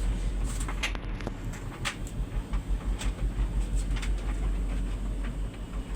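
Bosch Serie 6 heat pump tumble dryer running, its drum turning with a low rumble and a few light knocks from the tumbling load.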